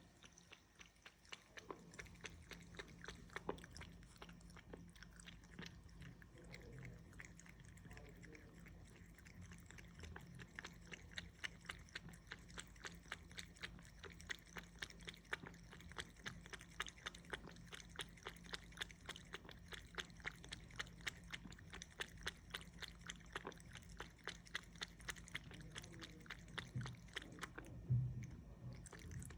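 A cat lapping water with its tongue: quick, soft, evenly spaced laps, about four a second. A single louder knock comes near the end.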